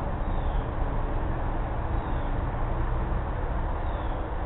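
Steady outdoor background noise, a low rumble with hiss, and a faint short high descending chirp about every one and a half to two seconds; no barking is heard.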